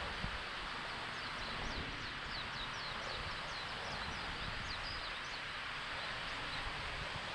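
A small wild bird calls a rapid series of short, high notes, each sliding down in pitch, at about four a second, starting about a second in and stopping a couple of seconds before the end. A steady rushing noise runs underneath.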